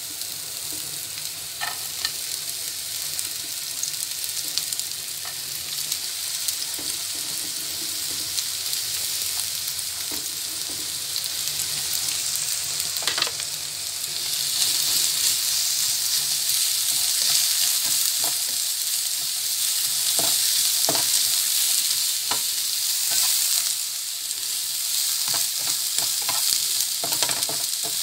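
Diced onion sizzling in hot oil in a nonstick frying pan, with a spatula now and then clicking and scraping against the pan as it is stirred. The sizzle grows louder about halfway through, when the onion is stirred around.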